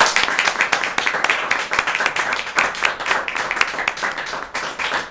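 Audience applauding: many hands clapping at once, easing off slightly toward the end.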